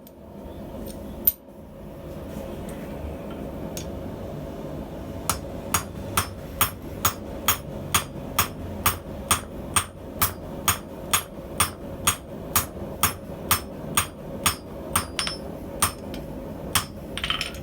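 Hand hammer striking hot steel on an anvil in a steady rhythm of a little over two blows a second, starting about five seconds in, over the continuous roar of a small gas forge's burner. A single sharp knock comes about a second in.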